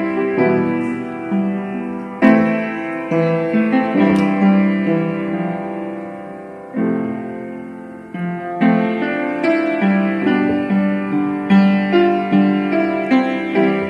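Piano being played by hand: a slow tune of chords and single notes, each struck and left to ring and fade. Around the middle the playing pauses on held chords that die away for a couple of seconds before the notes pick up again.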